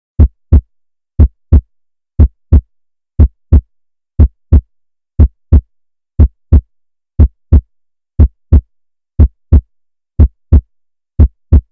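Heartbeat sound effect: a double thump (lub-dub) once a second, twelve beats in all, with dead silence between them.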